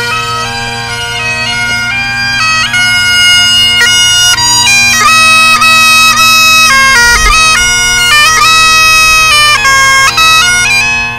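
Great Highland bagpipe played solo: steady drones sound under a chanter melody that steps from note to note, with quick ornamental flicks between the notes.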